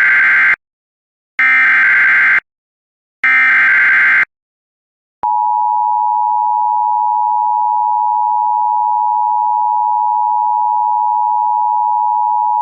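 Emergency Alert System SAME header: three loud, identical data bursts of about a second each, then a single steady attention tone that starts about five seconds in. Together they encode and announce the start of a new weather warning.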